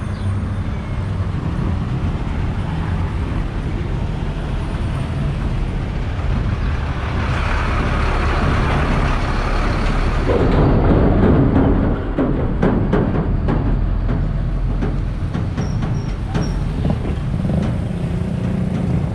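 Road traffic with a steady low engine rumble. About ten seconds in, a container truck (a tractor unit hauling a shipping container) passes close by: its noise builds and peaks as it goes past, followed by a run of rattling clicks.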